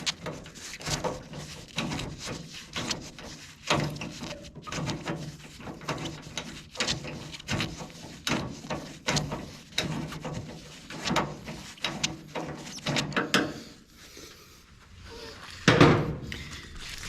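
Hand tools working a screw on the vent window and regulator assembly inside a 1955 Chevy 210 door: a run of short clicks and knocks, a few a second, easing off near the end before one loud knock.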